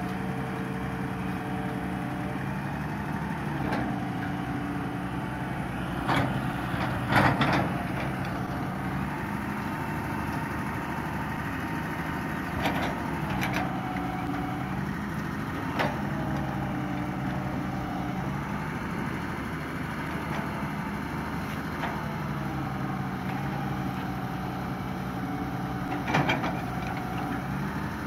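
Hitachi EX200 long-reach excavator's diesel engine running steadily, its note shifting up and down several times as the boom and bucket work. Brief sharp knocks come now and then, the loudest about a quarter of the way in and again near the end.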